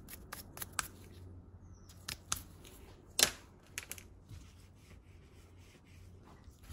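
Small hand-work noises on the valve block parts: a quick run of scratchy strokes, about six a second, in the first second, then a few scattered clicks and taps, the sharpest about three seconds in.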